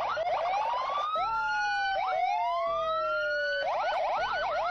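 Police car siren, several tones overlapping: wails rising in pitch, a long tone sliding slowly down, then fast up-and-down yelp sweeps in the last second.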